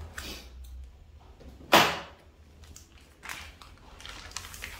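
A plastic courier mailer envelope being torn open by hand, with one loud sharp rip a little under two seconds in, amid short crinkling rustles of the plastic as it is pulled apart.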